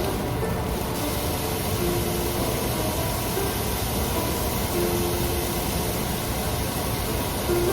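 Steady, even hiss with a few soft background music notes over it.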